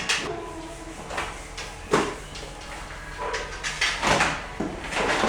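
Several sharp knocks and clatters of things being handled or set down, spaced a second or two apart, with a low background murmur.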